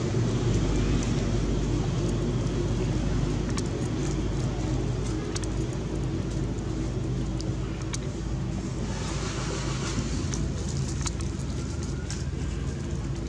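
A motor running steadily with a low, even hum, with a few faint scattered clicks.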